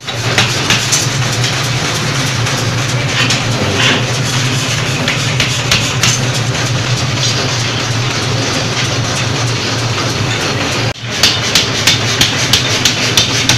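Forging-shop machinery running with a steady low hum and a loud clattering din, with scattered knocks. After a break about 11 seconds in, a regular series of sharp metallic knocks comes a little over two a second.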